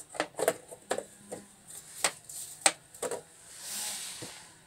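Plastic battery-compartment cover being pressed and fitted onto an electric scooter's deck: a series of sharp clicks and knocks, about seven over the first three seconds, then a soft rustle near the end.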